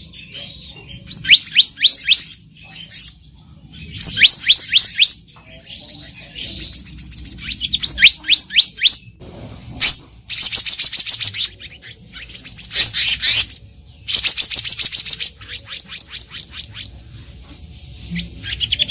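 Black-naped monarch calling: quick bursts of rapid, sharp, high-pitched notes, each burst lasting about a second, repeated over and over with short pauses between them.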